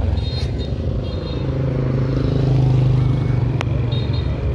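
Small motorcycle engine running steadily, swelling louder and a little higher in pitch about a second and a half in, then easing off. A single sharp click sounds near the end.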